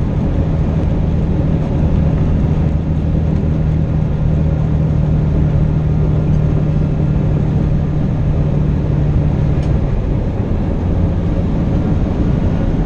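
Semi truck's diesel engine droning steadily from inside the cab while driving, over tyre and road noise. About ten seconds in there is a faint click and the engine note changes.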